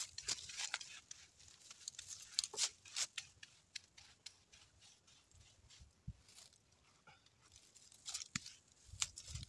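A paintbrush loaded with a hot tar mixture of used motor oil and diesel, worked in short strokes over a rough wooden beam: a string of faint, short scratchy swishes at irregular intervals, busiest in the first few seconds and again near the end.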